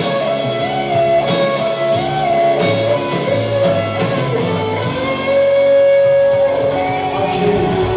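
Live rock band playing an instrumental passage without vocals: a guitar line of held, bending notes over strummed guitars, with repeated cymbal strokes.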